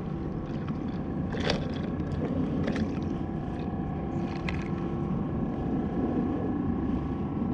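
Steady low rumble of wind and water around a kayak, under a faint steady hum, with a few sharp clicks about one and a half, three and four and a half seconds in.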